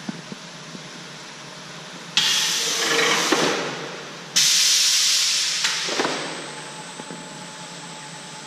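Two sudden hisses of compressed air, about two seconds apart, from the pneumatic gripper of an apple-bin handling robot as it grips and lifts a wooden bin off a stack. Each starts loudly and fades over a second or two, with a few clicks, over the steady hum of the line.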